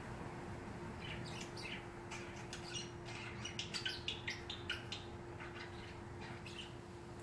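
Light metallic clicks and clinks of hollow BB-gun cartridges being picked up and handled in a metal pan, a quick cluster of them about three to five seconds in, over a faint steady hum.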